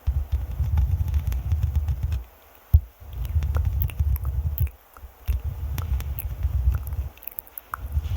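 Fingers scratching and rubbing directly on a microphone, heard as a deep scratchy rumble in stretches of a second or two with short pauses, with small clicks and one sharp tap a little under three seconds in.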